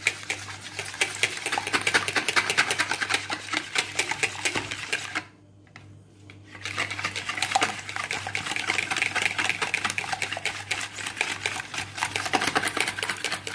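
Wire balloon whisk beating two raw eggs in a plastic bowl: fast, steady clicking of the wires against the bowl, stopping for about a second and a half near the middle and then resuming.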